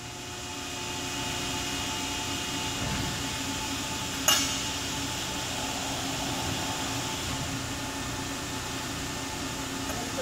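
Cincinnati 400H hydraulic press brake running at idle, its hydraulic pump giving a steady hum with a few constant tones. A single sharp click sounds about four seconds in.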